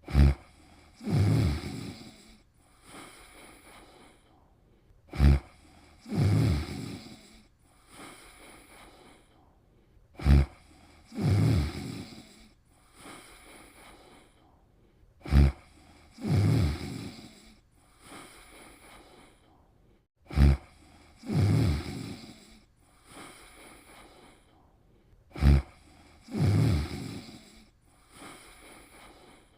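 Snoring in a steady rhythm, about one breath cycle every five seconds. Each cycle is a brief sharp snort, then about a second later a longer, louder snore, then a fainter breath.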